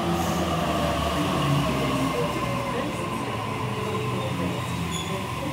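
Sydney Trains Waratah A-set electric train arriving at the platform, its traction motors giving a whine that slowly falls in pitch over a low rumble as it slows.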